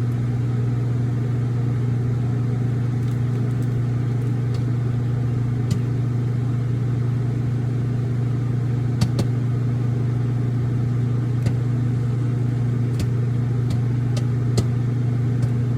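Microwave oven running with a steady hum while a bag of popcorn cooks inside, single kernels popping here and there, a few seconds apart.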